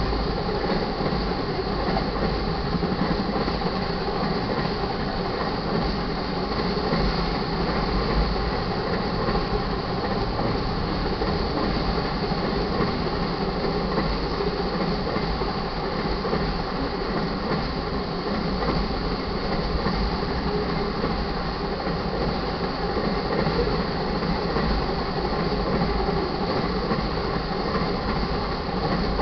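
Enclosed autorack freight cars of an auto carrier train rolling steadily past at track speed: an even rumble and rattle of steel wheels on rail.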